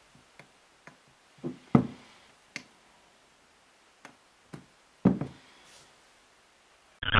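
Hands working a Korg SQ-1 step sequencer on a wooden table: scattered clicks and knocks from its buttons and metal case, about nine in all, the loudest about two and five seconds in. Distorted guitar music cuts in right at the end.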